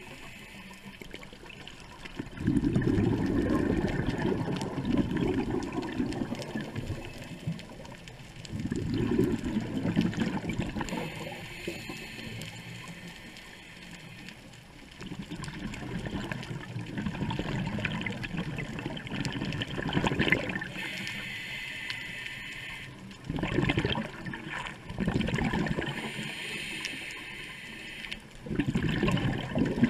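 Underwater sound of a scuba diver's regulator breathing: bursts of exhaled bubbles every few seconds, with quieter stretches between.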